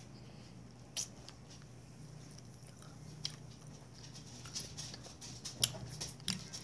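Someone biting and chewing candy close to the microphone: scattered sharp clicks and crunches, coming more often in the last two seconds.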